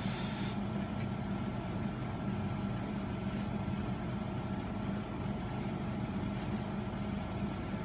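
Wooden pencil writing on a paper notepad: short, faint scratchy strokes coming and going, over a steady low room hum.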